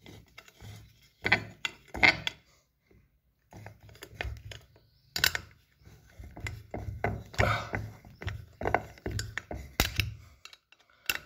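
Screwdriver working the clamp screw of a Makita angle grinder's wheel guard, tightening the guard: irregular small metallic clicks and knocks as tool and grinder are handled.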